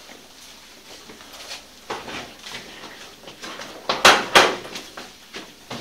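Rummaging and clatter broken by sharp knocks and bangs: one a little before two seconds in, then two loud ones in quick succession just after four seconds.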